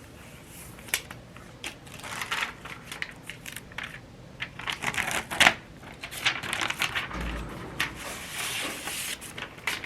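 Rustling and crinkling of packaging being handled and pulled apart, in irregular bursts with a few sharper clicks; the loudest crinkle comes a little past halfway.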